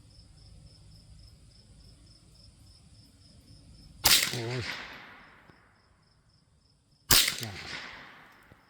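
Two shots from a Mendoza Puma .22 LR rifle, about three seconds apart, each a sharp crack followed by an echo that dies away over a second or so. Crickets chirp steadily and faintly underneath.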